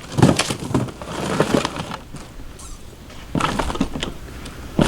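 Cardboard boxes knocked over and crumpled by a ride-on toy truck: bursts of knocks and crackles, a quieter spell in the middle, and another sharp knock at the end.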